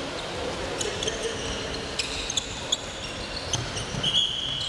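Handballs bouncing on a wooden sports-hall floor in irregular thuds, with short squeaks of players' shoes and a longer high squeal near the end.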